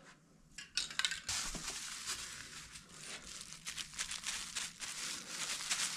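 A plastic bag crinkling and squishing as it is worked and dabbed into dish soap in a plastic tub, a dense run of crackles starting about half a second in.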